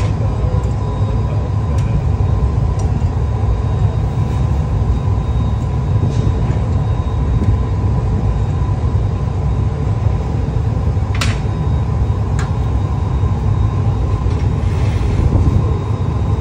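Gas-fired glory hole and furnace burners with their blowers running, a steady low rumble with a faint steady whine over it. Two short sharp clicks come about two thirds of the way through.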